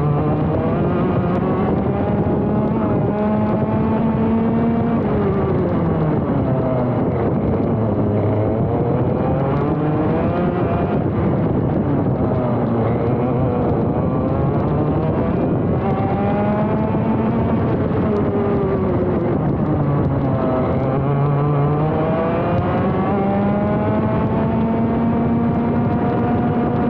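ROK GP Junior 125cc two-stroke kart engine heard from onboard at racing speed. Its revs climb and fall smoothly several times, with no gear changes, as the kart accelerates and slows around the lap.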